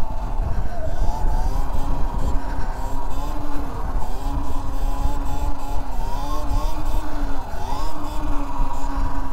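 Electric dirt bike's 72-volt motor whining, its pitch rising and falling several times with the throttle, over a heavy rumble of wind on the handlebar camera's microphone.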